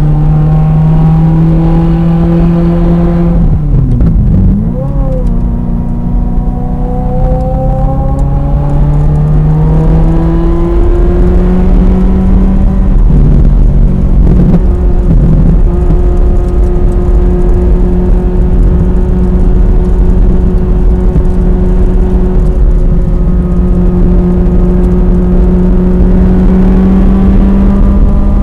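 Ferrari F355 Challenge's 3.5-litre V8 heard from inside the cabin, driven hard on track: the revs climb, drop sharply at a gear change about three seconds in, climb again, then hold nearly steady through the second half.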